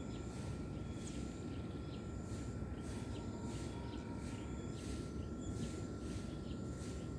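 Outdoor ambience: insects chirping in short, evenly repeated pulses about twice a second, with a constant thin whine, over a steady low rumble.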